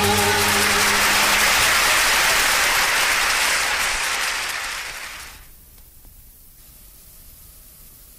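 Audience applauding as the last held notes of a ghazal die away. The applause fades out about five seconds in, leaving a faint hiss.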